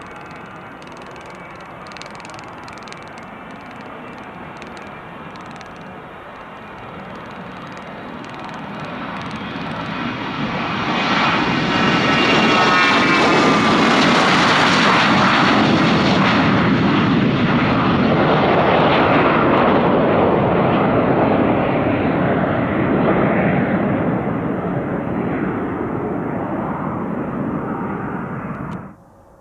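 Hawker 750 business jet's twin Honeywell TFE731 turbofans at takeoff power as it departs past. The sound builds to a loud peak about a third of the way in, with a whine that falls in pitch as the jet goes by, then fades slowly until it cuts off abruptly just before the end.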